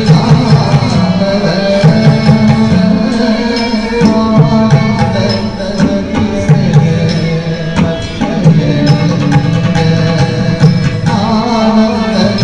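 Indian classical dance music with steady hand-drum percussion and a singing voice, carried by the hall's sound system.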